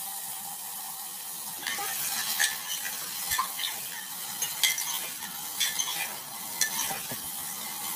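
Meat pieces frying in hot oil in a metal pressure cooker, sizzling steadily. From about two seconds in, a metal ladle stirs them, with irregular clinks and scrapes against the pot as the meat is browned.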